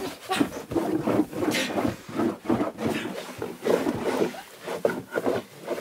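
Grunting and straining breaths of people grappling in straw, with the straw rustling under them, in irregular bursts.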